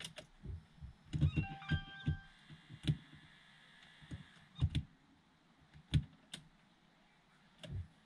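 Hands working on the car's dashboard parts: about ten irregular sharp clicks and knocks of hard plastic, with a brief high squeak-like ringing about one to two seconds in.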